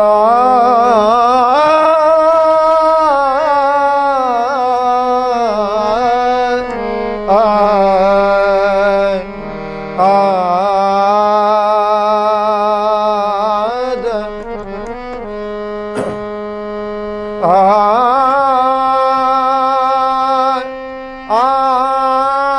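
Male voice singing a slow, ornamented Marathi abhang (devotional song) with long held, wavering notes over a harmonium's sustained chords. The singing breaks off briefly a few times between phrases.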